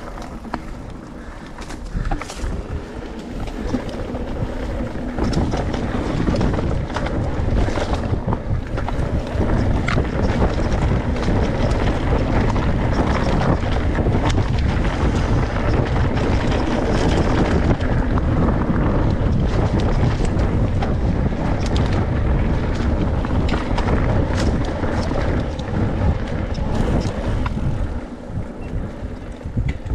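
Wind buffeting the action-camera microphone and tyres rumbling over a dirt forest trail as a Husqvarna MC5 electric mountain bike is ridden along, with scattered knocks and rattles from the bike over bumps. The rush builds over the first few seconds and eases a little near the end.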